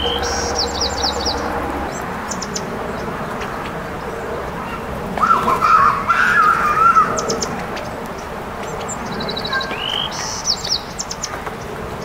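Small songbirds singing in short phrases: a rising whistle followed by quick high trills, once near the start and again about ten seconds in. A louder, wavering sound comes in about five seconds in and lasts a couple of seconds, and a low steady hum fades out in the first two seconds.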